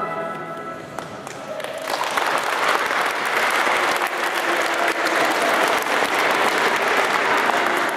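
Audience applauding. It starts about a second in and grows into steady, full clapping.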